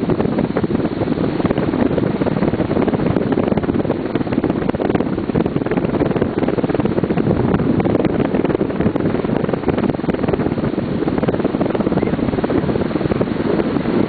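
Pacific surf breaking and washing up the beach, heard as a steady rush, mixed with wind buffeting the microphone.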